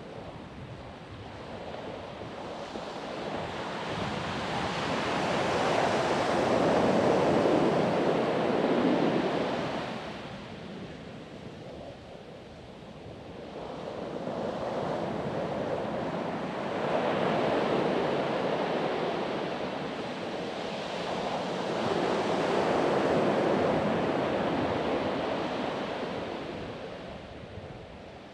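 Ocean surf breaking and washing up a sandy beach, rising and falling in slow surges: three big swells with quieter lulls between them.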